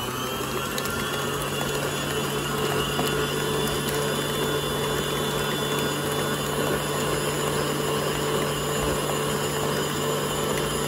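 Electric stand mixer running at a steady speed, its flat beater churning thick cheesecake batter in a stainless steel bowl: an even motor hum.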